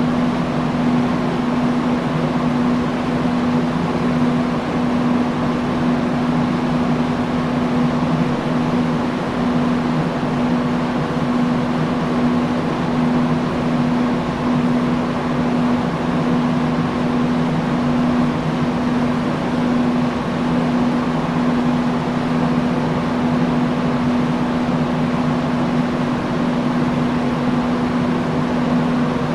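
Industrial fan running steadily: an even rush of moving air with a constant low motor hum.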